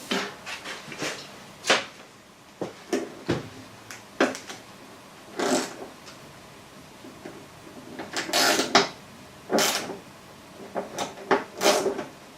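A wrench working a stiff, seized wiper-linkage bolt back and forth: a string of irregular short clicks, creaks and scrapes of metal as it gives resistance.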